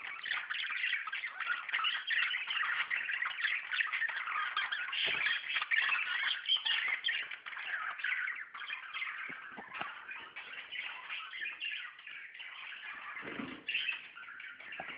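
A flock of budgerigars chattering and chirping together in a dense, continuous warble of many overlapping short calls, growing a little quieter in the second half. There is a brief low thump near the end.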